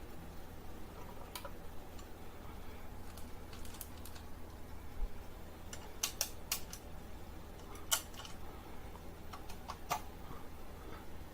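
Scattered light clicks and taps at irregular intervals, the sharpest few bunched around the middle, over a low steady hum.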